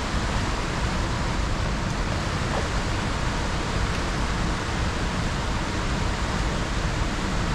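Loud, steady rushing of fast-moving river water, with no break or change.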